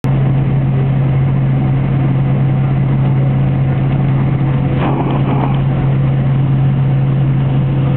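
Steady drone of a Boeing 767-300's jet engines and airflow heard inside the passenger cabin on approach, with a strong constant low hum. A brief sharp sound rises over it about five seconds in.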